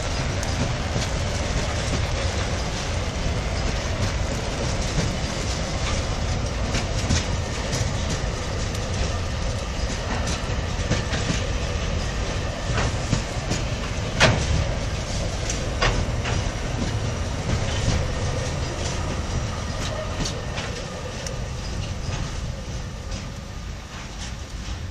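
Empty open freight wagons rolling past on the rails: a steady rumble with the clickety-clack of wheels over rail joints and scattered clanks, the loudest about fourteen seconds in. It fades near the end as the last wagons go by.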